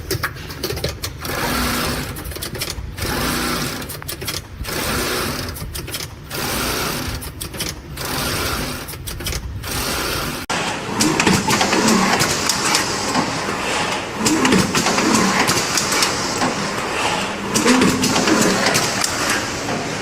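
Machinery running in repeated cycles, one about every second and a half, then an abrupt change about halfway to a denser, continuous machine noise with wavering tones.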